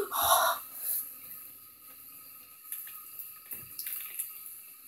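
A thin stream of water trickling from a bathtub faucet into the tub, with a few faint knocks of sneakers shifting on the tub floor.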